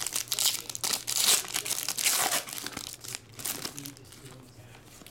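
Foil trading-card pack being torn open by hand, its wrapper crinkling and ripping in a quick run of sharp crackles that die down after about three and a half seconds.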